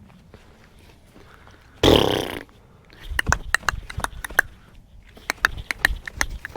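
Dry dog kibble clattering in quick, irregular clicks, starting about three seconds in, as the dogs' food goes into their bowls. A short loud burst of noise comes just before the clicks, about two seconds in.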